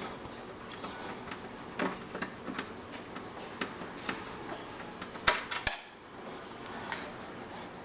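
Small metallic clicks and taps from a screwdriver working a screw out of the computer's metal case, scattered throughout, with a quick cluster of sharper clicks about five seconds in.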